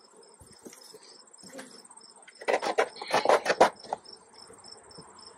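Crickets chirping steadily, about three chirps a second, over a faint continuous high insect trill. About two and a half seconds in, a quick run of sharp crackles and rustles, lasting just over a second, as stiff tar paper is handled and cut around the hive.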